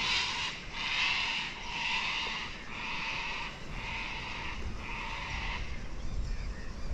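An animal call repeated about once a second, six times, and then stopping.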